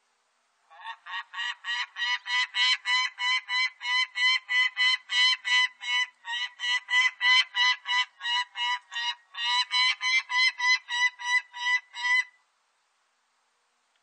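Peregrine falcon giving a long, rapid series of kak calls, about four a second, with a brief break about nine seconds in.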